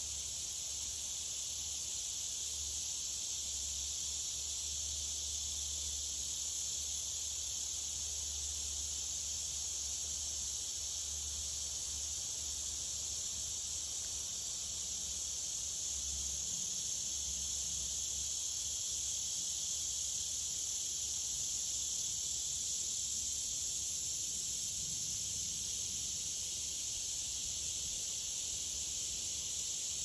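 Steady, dense high-pitched chorus from the woods, which the uploader takes for tree frogs singing their rain songs, with a low rumble of wind coming and going underneath.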